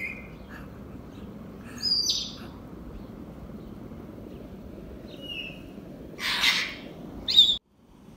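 African grey parrots calling: a few short, clear whistles and a harsh screech, spaced out over several seconds. A last sharp call is followed by the sound cutting off suddenly near the end.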